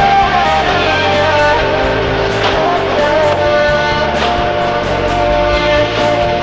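Music: a rock-style song with guitar and a steady drum beat.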